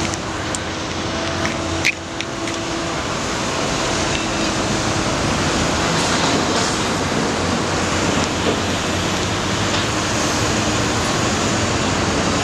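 Steady street traffic din with idling trucks, heard from high above, with a faint engine hum under it. One sharp knock about two seconds in.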